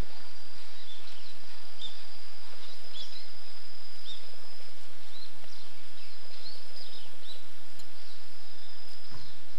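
Outdoor ambience of insects keeping up a steady high trill, with many short high chirps scattered through it, over a steady hiss.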